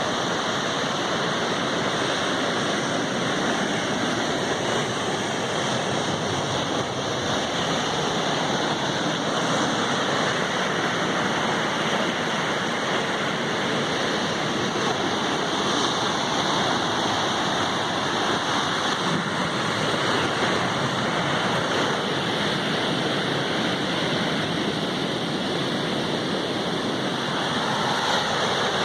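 Sea waves breaking on the shore, a steady continuous rush with gentle swells.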